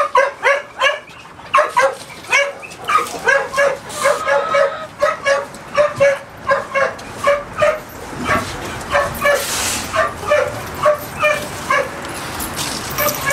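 Pit bulls barking over and over, in short barks about two a second.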